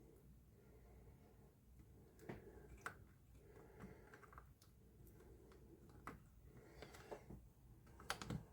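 Faint, scattered small clicks and taps of small plastic parts being handled and pressed into place, with the strongest pair near the end.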